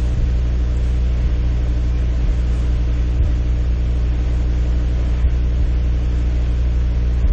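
A steady low hum with a buzzy edge over a constant hiss, unchanging throughout, with a few faint low ticks.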